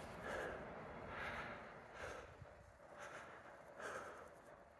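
A hiker's heavy breathing, faint and even, with a puff of breath about once a second from the effort of a steep uphill climb.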